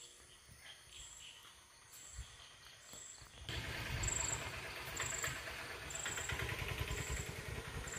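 Crickets chirping in the dark, a short high chirp about once every second. About halfway through, a louder rough rumbling and rustling noise starts under them.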